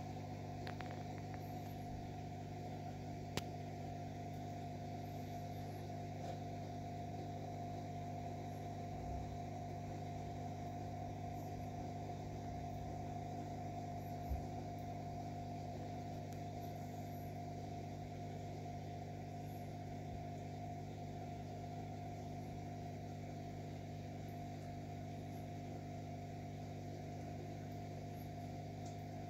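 Steady electric hum of aquarium equipment, several fixed tones that do not change. A single sharp click comes about three seconds in, and a soft low knock comes near the middle.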